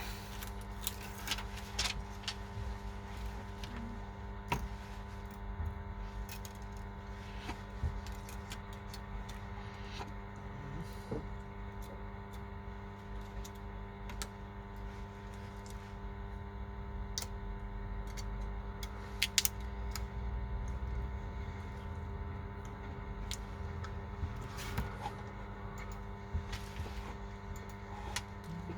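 Scattered small clicks and taps of hand tools and phone parts being handled during an iPhone screen replacement, over a steady electrical hum.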